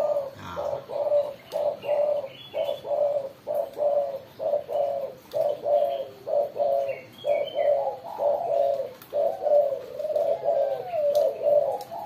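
Spotted doves calling in a long run of short, repeated coos, about two a second, with calls overlapping near the end: challenge calling, the sign of doves squaring up to fight.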